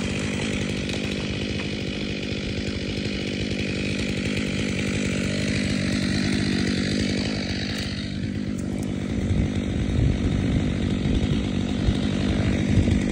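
Two-stroke chainsaw engine running steadily without cutting, with a falling whine about seven to eight seconds in.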